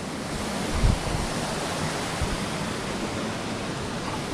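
Steady rush of river water tumbling over rocks, with a brief low thump about a second in.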